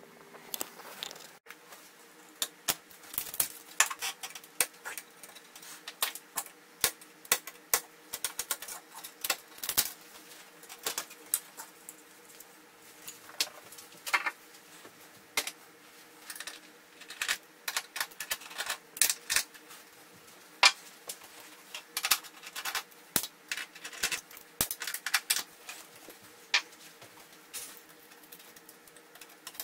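Many irregular sharp clicks and snaps, often in quick clusters, as a screwdriver and hands work at the edge of an opened flat-screen TV's metal frame and plastic parts. A faint steady hum lies underneath.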